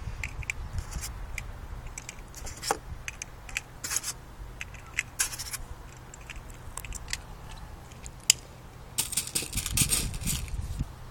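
Small metallic clicks and scrapes from handling and loading a Dan Wesson CO2 BB revolver, with a quick run of clicks near the end. One single sharp crack about eight seconds in is the loudest sound. Wind rumbles on the microphone throughout.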